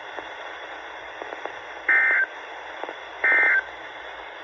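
Weather radio sending the EAS/SAME end-of-message data signal after a severe thunderstorm warning: two identical short buzzy digital tone bursts, each about a third of a second, about a second and a half apart, over steady radio hiss.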